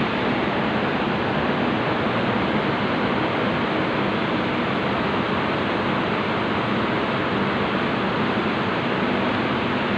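An engine running steadily at constant speed, heard as a dense, even rushing noise with a faint low hum underneath and no change in pitch or level.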